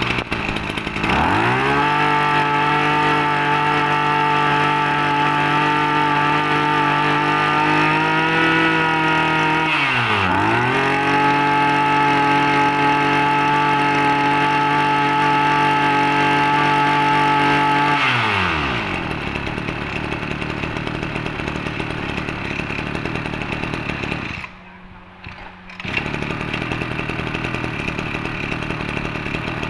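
Two-stroke engine of a used Echo brush cutter revving up quickly to high speed and holding there. About ten seconds in it dips sharply and climbs straight back, then a little past halfway it settles to a lower idle. Near the end the engine sound drops out for about a second, then the idle resumes.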